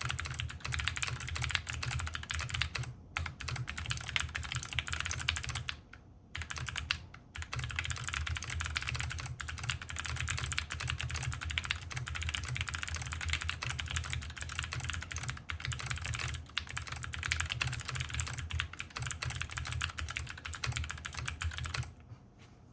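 Fast, continuous typing on a tenkeyless mechanical keyboard with Gateron Melodic switches, a leaf-spring steel plate with plate foam, and JTK Tianwen keycaps. There are brief pauses about three seconds and about six seconds in, and the typing stops just before the end.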